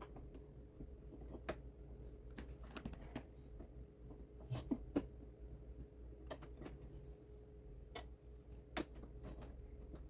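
Faint, scattered clicks and light knocks as a scooter's front wheel is handled and worked into line between the fork legs.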